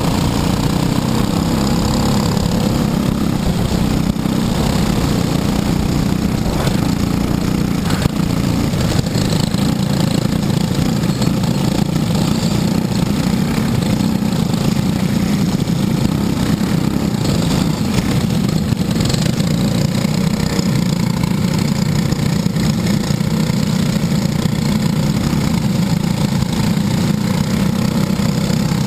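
Briggs & Stratton LO206 single-cylinder four-stroke kart engines, the onboard kart's own and those of the pack around it, running steadily with no hard revving.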